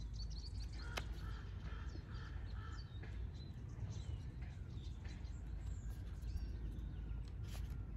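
Small birds chirping, with a crow cawing several times in the first few seconds, over a steady low outdoor rumble. There is a light click about a second in.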